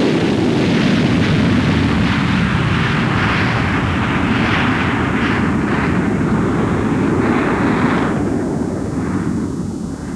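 Jet aircraft engine at full power during a carrier catapult launch, a loud steady roar that fades over the last couple of seconds as the jet flies away.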